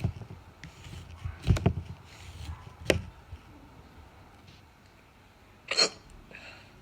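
A woman hiccuping: a few short, sharp hiccups a second or more apart, with a longer gap before the last one near the end.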